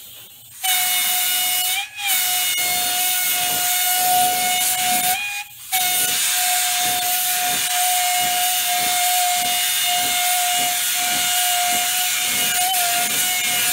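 Harbor Freight gravity-feed paint spray gun spraying 2K primer: a steady air hiss with a high whistle, starting about half a second in. The sound cuts out briefly twice, near two seconds and again about five seconds in, as the trigger is let off.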